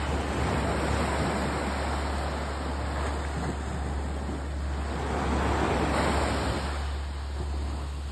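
Small sea waves breaking and washing up a sandy beach, swelling loudest about five to six seconds in, over a steady low rumble.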